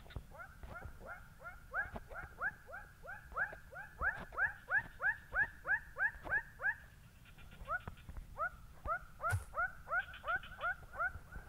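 An animal calling in a long run of short, pitched notes, about three a second, breaking off for about a second about seven seconds in and then starting again. A single sharp click comes about nine seconds in.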